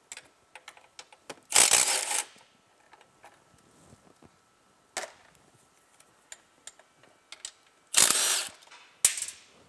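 Cordless Milwaukee Fuel power tool driving suspension bolts on a snowmobile in short bursts: one about one and a half seconds in, another near eight seconds and a brief one just after. Small clicks and taps of tools and parts come between the bursts.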